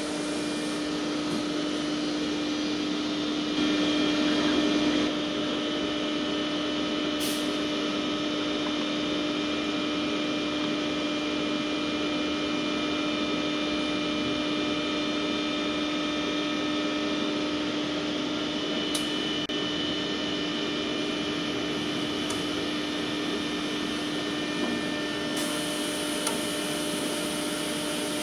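Steady electrical machine hum from an idle TIG welding station, with a strong low tone that swells briefly about four seconds in. There are two faint sharp clicks, and a high hiss comes in near the end.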